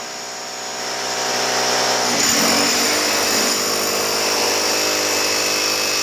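Corded electric demolition hammer chiseling into a concrete floor, running continuously and getting louder over the first couple of seconds.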